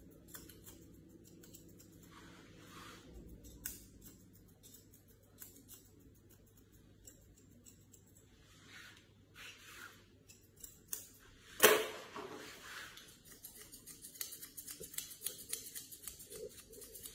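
Grooming scissors snipping a Shih Tzu's head hair: scattered single snips, one louder sharp click about twelve seconds in, then a quick run of rapid snips near the end.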